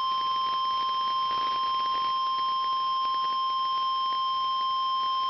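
Emergency Alert System attention tone: a single steady tone near 1 kHz, held unbroken over faint static. It is the signal that a spoken severe thunderstorm warning is about to follow.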